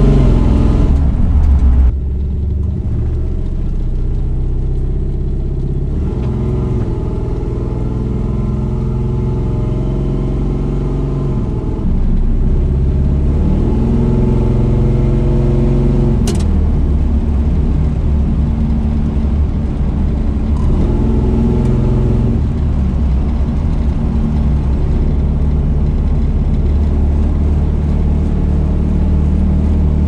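Cammed small-block Chevy V8 with long-tube headers and a loud aftermarket exhaust, heard from inside the cab of a 1983 Chevy C10 pickup while driving. Its pitch rises and falls as the truck accelerates and eases off, and the level steps up about twelve seconds in. One sharp click comes about halfway through.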